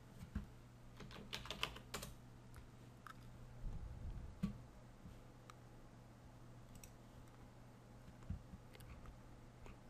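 Faint computer keyboard keystrokes: a quick run of several key presses about a second in, then scattered single clicks, over a low steady hum.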